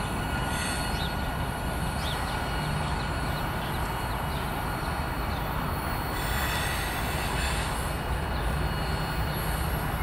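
Freight train cars rolling past on the rails: a steady rumble of wheels on track, with a few faint, brief high squeals from the wheels.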